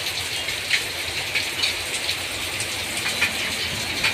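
Steady hissing background noise with a few faint, short clicks and taps scattered through it.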